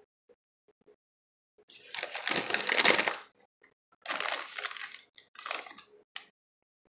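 Doritos chip bag crinkling as it is picked up and a hand rummages inside for a chip, in several bursts, the longest and loudest in the first half.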